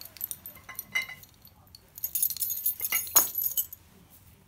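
A bunch of keys jangling as it is put down, along with glass bottles of whisky clinking in a shopping bag. A few light clicks come first, then about two seconds in a longer run of jangling and clinking with one sharper clink near its middle.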